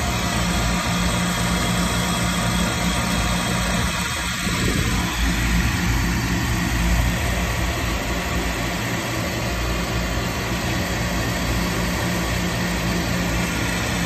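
Lennox rooftop unit's gas-heat combustion air inducer motors running with a steady low hum, in the pre-purge before the burners light.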